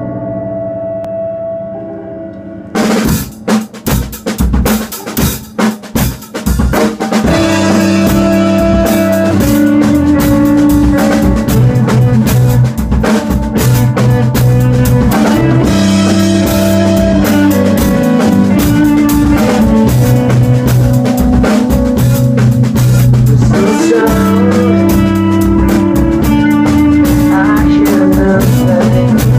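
Live rock band playing: a held chord fades out, then a drum kit comes in with separate hits about three seconds in, and from about seven seconds the full band plays steadily, drums with electric bass and chords.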